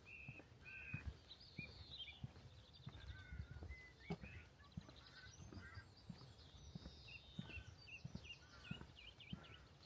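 Small birds chirping and trilling in short high calls throughout, over faint footsteps at a walking pace of about two steps a second.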